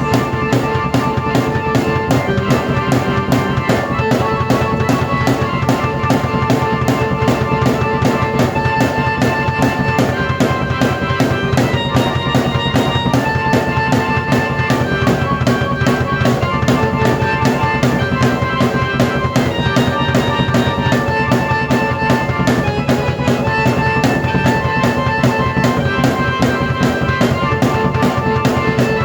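Drum kit and keyboard played together by one player: a steady, busy beat on bass drum, snare and cymbals under held keyboard chords and melody that change every second or two.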